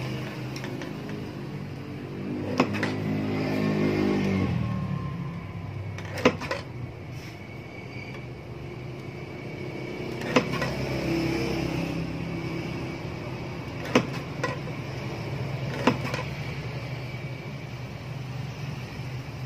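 Guillotine paper cutter's blade arm chopping down through photo paper: five sharp cuts a few seconds apart. A steady low hum runs underneath and swells for a couple of seconds near the start.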